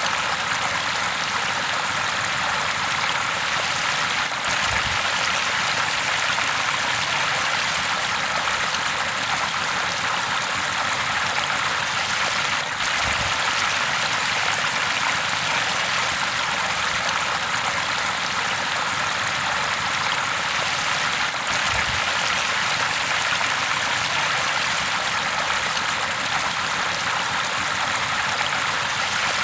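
River water flowing steadily over rocks, a continuous rushing babble.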